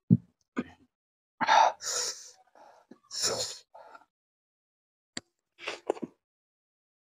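Close-miked eating sounds of a man eating spicy fish curry and rice with his fingers: short, irregular mouth and breath noises. A low thump comes right at the start and is the loudest sound.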